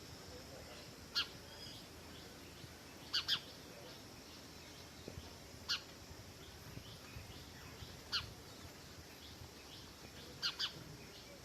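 House sparrow chirping: short, sharp chirps every two to three seconds, some single and some in quick pairs.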